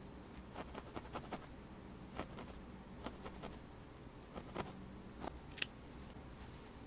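Felting needle stabbing into wool, a series of soft scratchy pokes at irregular intervals, then small scissors snipping the wool near the end.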